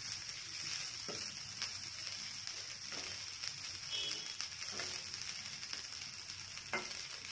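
Steel spatula stirring and scraping vegetable fried rice in a kadai, with a few light knocks of the spatula against the pan over a faint steady sizzle.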